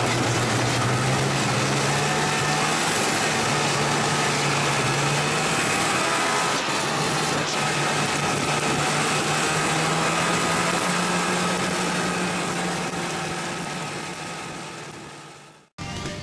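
Two-stroke snowmobile engine running at a steady trail speed, heard from the rider's seat over track and wind noise; its pitch rises slightly partway through. Near the end it fades out and guitar music begins.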